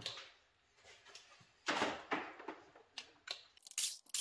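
Handling noise over the engine bay as a power drill is picked up and set onto an intake plenum bolt: scattered rustles and knocks, then a quick run of sharp clicks near the end.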